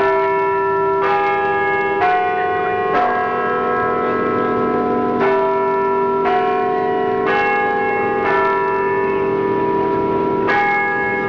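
Church bells ringing, a new stroke about once a second, each ringing on under the next, with a couple of short pauses.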